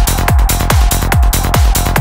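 Psytrance track: a kick drum hits a little over twice a second, each hit dropping in pitch, with a busy bassline between the kicks and a steady high synth tone above.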